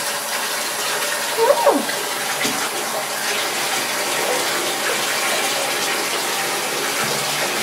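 Bathtub tap running steadily as the tub fills. A cat meows once about one and a half seconds in, a call that falls in pitch.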